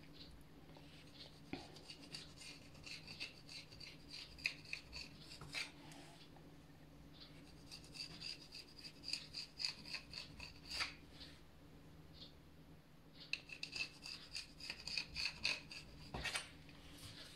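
Knife cutting a rolled sheet of pastry dough into squares, the blade scraping against the counter beneath: faint, quick scraping strokes in several runs with short pauses between.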